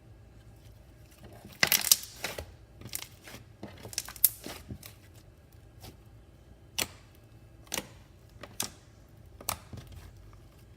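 Clear glue slime being squished and stretched by hand, giving sharp, irregular clicks and pops: a quick cluster in the first few seconds, then single pops about a second apart.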